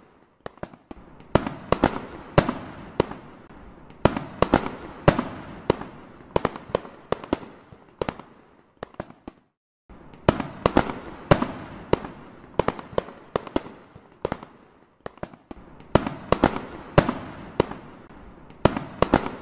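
Fireworks going off: a rapid, irregular series of sharp bangs, each fading away in a short rumbling tail. The bangs stop dead for about a second near the middle, then start again just as densely.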